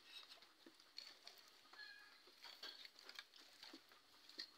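Near silence, with faint scattered clicks and light ticks and a brief faint chirp about two seconds in.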